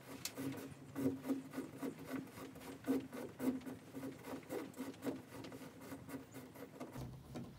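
Faint, repeated rubbing and scraping, a few strokes a second: a network cable being pulled hand over hand through a hole in the soffit.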